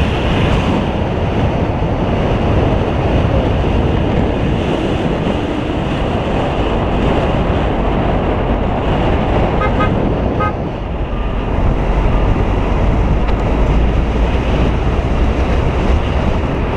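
Steady wind rushing over an action camera's microphone on a moving road bicycle. About ten seconds in, two short high tones sound briefly over it.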